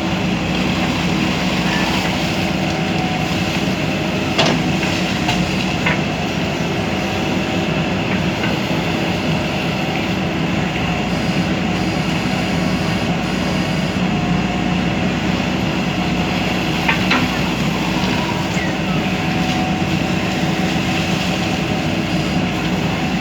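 JCB backhoe loader's diesel engine running steadily under work, with a few sharp metallic knocks.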